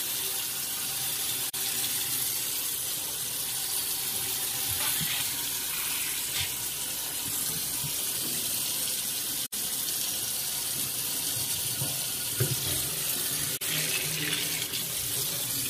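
Kitchen faucet running steadily into the sink, a constant splashing hiss that drops out very briefly three times.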